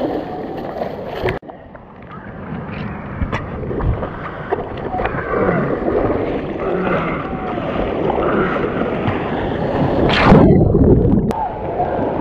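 Sea water sloshing and gurgling right at the microphone in the shore break, with wind on the microphone. A louder rush of water comes about ten seconds in.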